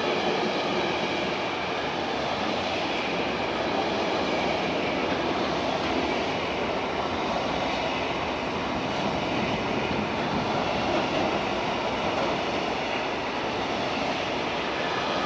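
Freight train of loaded container flat wagons rolling past at speed: a steady rushing rumble of steel wheels on the rails.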